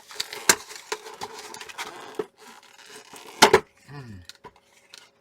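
Cardboard collection box being handled and pried at by hand: crackling, rubbing and scattered clicks, with one sharp knock about three and a half seconds in.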